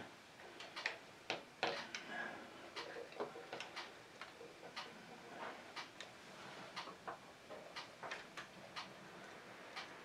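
Faint, uneven light clicks and taps, about two or three a second, from a soldering iron and fingers working the wires and the new program switch on an RC car's electronic speed controller.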